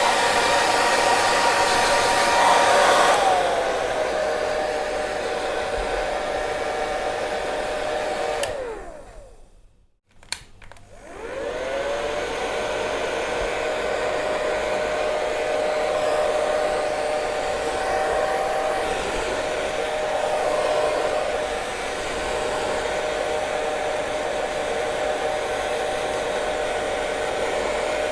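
Hair dryer running with a steady motor whine over rushing air. About three seconds in the whine slides down to a lower pitch; around nine seconds it winds down to a stop, a click follows, and it spins back up and runs on at the lower pitch.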